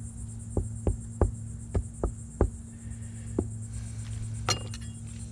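About seven short dull knocks as pieces of a rotten plywood mast-step base are broken off by hand and fall on the fibreglass deck, then a sharper metallic clink near the end.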